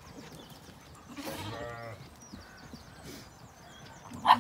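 Zwartbles sheep bleating: a long, quavering bleat about a second in and a louder, short bleat near the end.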